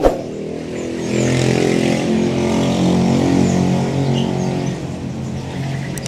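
A motor vehicle's engine running as it passes by, swelling about a second in and fading towards the end. Faint chirps from caged birds sound over it.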